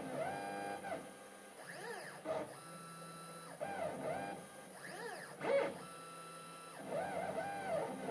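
The axis stepper motors of a CNC-Step High-Z S-720/T router whine as it drives a diamond-tipped engraving tool across a brass plate. The tones rise and fall in pitch again and again as the axes speed up and slow down between moves, with brief pauses.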